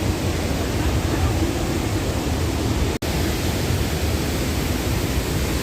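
Waterfall's steady roar of falling water, a dense even rush heaviest in the low end. It breaks off for an instant about three seconds in.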